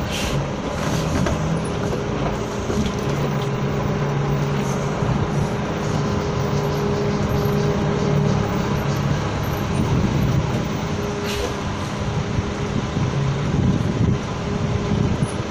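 Diesel engine of a coach bus running steadily at low speed as the bus reverses slowly. A brief hiss comes about eleven seconds in.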